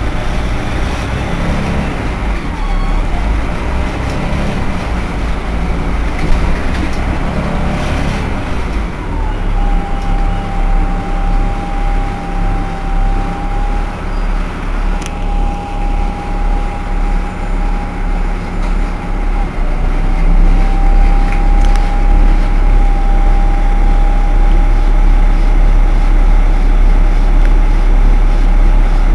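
Irisbus Citelis 18 articulated city bus idling at a standstill with a steady low engine rumble. About nine seconds in, a steady high whine joins it and breaks off briefly midway. Near two-thirds of the way through, the engine's low rumble grows louder.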